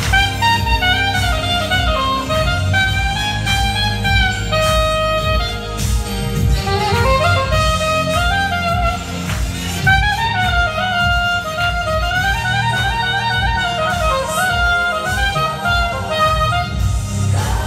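Saxophone playing a jazz melody, moving between quick runs and a few held notes.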